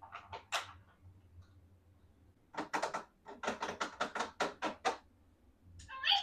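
Small plastic toy parts clicking and tapping as they are handled: a few clicks at first, then a quick run of about a dozen taps over two and a half seconds, and a short rattle near the end.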